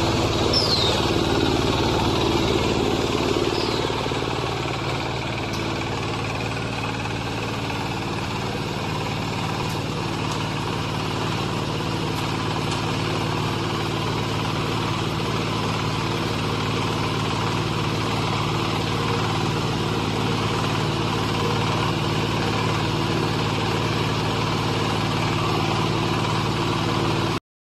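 Silage round baler and wrapper machine running with a steady engine-like hum, dipping slightly in level about four seconds in. Two brief falling squeaks come in the first few seconds, and the sound cuts off abruptly at the end.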